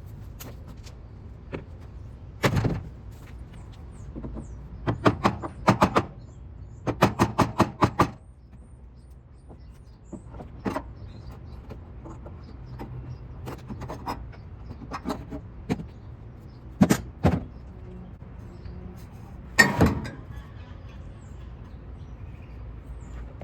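Work noise: a scattering of sharp knocks and clanks, several coming in quick runs of four or five strikes about five to eight seconds in, over a steady low hum.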